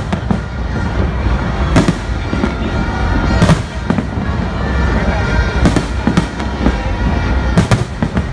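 Aerial fireworks shells bursting overhead, a sharp bang every second or two over a continuous low rumble.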